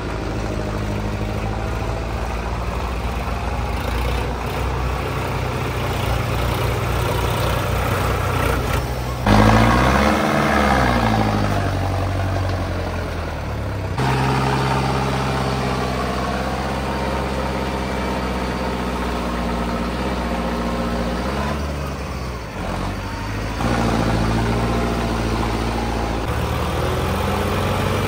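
Tractor diesel engine running steadily, with a burst of revving about nine seconds in that rises and falls back over a few seconds. The engine note changes abruptly a few more times.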